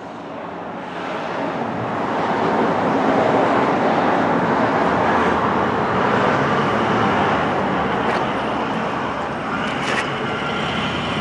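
Steady rushing road-vehicle noise, like traffic going by, swelling over the first two or three seconds and then holding, with a faint click near the end.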